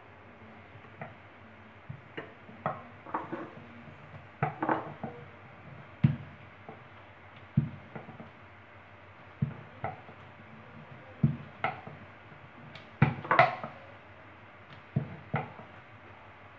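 Wooden rolling pin knocking and rolling on a round board as small discs of dough are rolled out thin: irregular knocks about once a second, often in pairs, some with a dull low thud.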